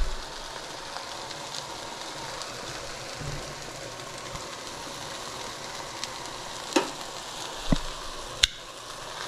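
Stir-fry sizzling steadily in a hot oiled pot as the noodles go in, with a thump at the start and three sharp knocks of a utensil against the pot in the last few seconds.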